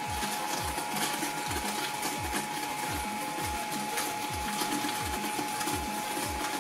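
Small twin-shaft shredder running as its cutters grind down through a half watermelon: a steady motor whine and gear whirr with small clicks, over a regular low thud about every three quarters of a second.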